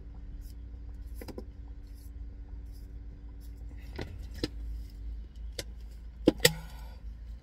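A plastic drink bottle crinkling and knocking as it is drunk from and lowered. There are a few sharp crackles, and the two loudest come close together near the end, over a low steady hum in the car cabin.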